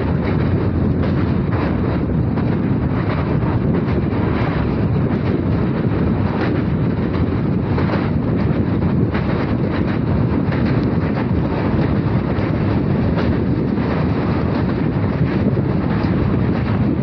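Passenger train running along the line, heard on board: a steady rumble of coach wheels on the rails with rushing wind and faint, irregular clicks from the track.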